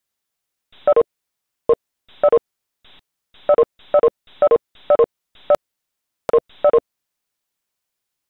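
Short electronic beep tones, about eleven of them, each a brief chord of a few pitches. Some come singly and some in quick pairs, at irregular intervals, like telephone or conference-line tones.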